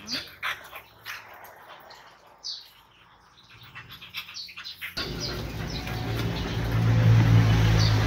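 An American bully dog makes short whines and breathing sounds. About five seconds in, a louder steady low hum takes over, with faint high chirps like birds.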